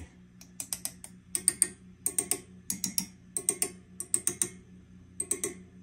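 A rod tapping on the tubes of a running tweed-style tube guitar amp in quick clusters of three or four taps, over the amp's steady low hum. It is a test for microphonic tubes, and the result is actually not bad.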